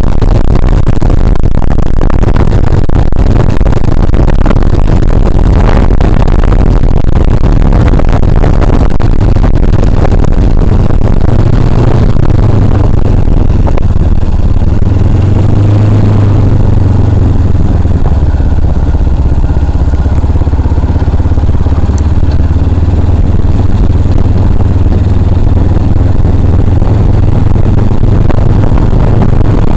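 Motorcycle on the move, its engine running steadily under heavy, constant wind noise on the microphone.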